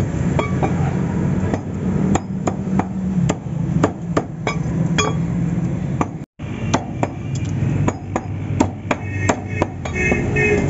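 Meat cleaver chopping chicken on a wooden log chopping block: sharp, irregular knocks, roughly one to three a second, over a steady low hum. The sound cuts out for a moment a little past halfway.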